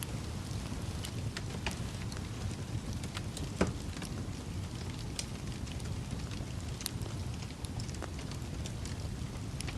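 Wood fire burning in a fireplace: a steady low rush of flames with scattered sharp crackles and pops from the logs, one louder pop about a third of the way in.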